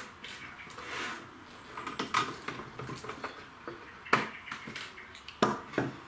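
Phillips screwdriver undoing the screws on the back of a metal DVR case: small metallic scrapes and clinks, with a few sharp clicks, two louder ones in the second half.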